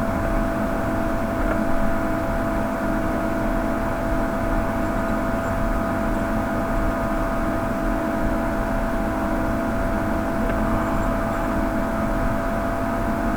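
Steady mechanical whir with a constant high hum over it, even in level throughout.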